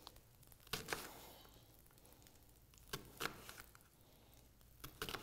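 Chef's knife slicing through a red onion and clicking on a wooden cutting board: three pairs of crisp cuts about two seconds apart.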